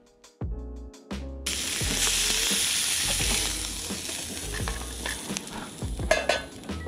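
Sirloin steak sizzling in hot butter in a pan, the sizzle starting suddenly about a second and a half in as the meat goes into the pan, then holding steady.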